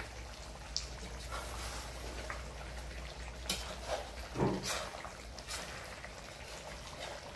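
Steady low hum of a gas burner under a metal wok of simmering curry, with a few light clicks from the cook's utensils against the pan. About four and a half seconds in there is a short low cry.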